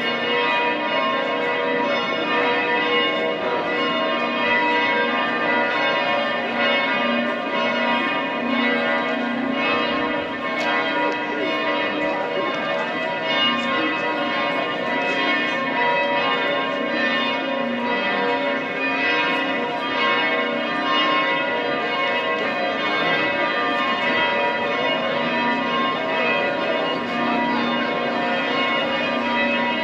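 Two church bells of St. Stephen's Cathedral ringing together in a continuous peal, their tones sounding on and overlapping without a break.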